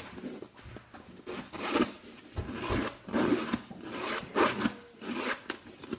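Zipper on a handbag being pulled back and forth, a series of short rasping strokes about a second apart, with the bag's canvas rubbing as it is handled.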